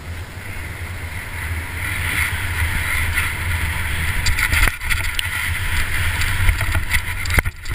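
Mountain bike riding down a dirt trail heard from a helmet-mounted camera: a steady rush of wind on the microphone and tyres rolling on dirt, growing louder over the first few seconds as it picks up speed. From about halfway on, a few sharp knocks and rattles from the bike over bumps.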